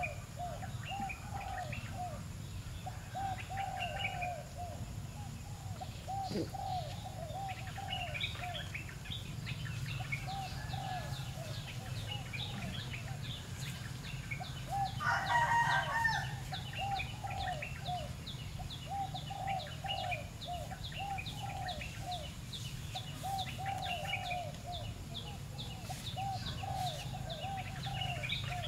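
Birds calling: long runs of short, repeated low calls, with thin higher chirps over them and a louder flurry of calls about fifteen seconds in.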